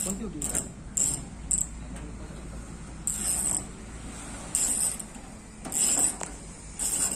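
Hand tools working on a jeep being stripped down: about eight short bursts of mechanical clicking, four quick ones in the first second and a half, then longer ones roughly a second apart.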